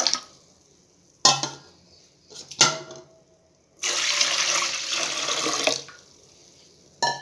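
Roasted urad dal being rinsed in a steel pot: two sharp clinks of a steel ladle against the pot, then about two seconds of running water, and another clink near the end.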